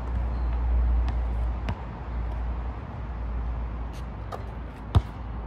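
Basketball bouncing on an outdoor asphalt court: two dribble bounces in the first two seconds, then a louder, sharp single hit about five seconds in, after a shot. All of it is over a steady low rumble.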